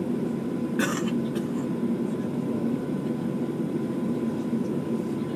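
Steady low drone of an Airbus A330's engines and air system heard inside the passenger cabin, with a brief cough-like sound about a second in.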